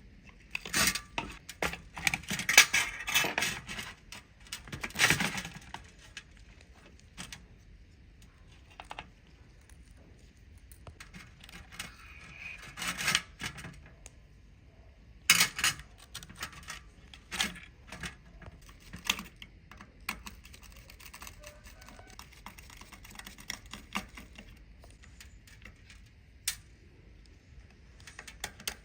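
Irregular clicks, taps and short rasping scrapes of hand tools and small parts being handled. The scraping is densest in the first few seconds and again about halfway through, with a few sharper knocks after that.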